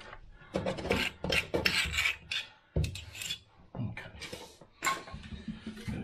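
Hand rasping: a quick, uneven series of scraping strokes worked back and forth against a hard edge, thinning out near the end.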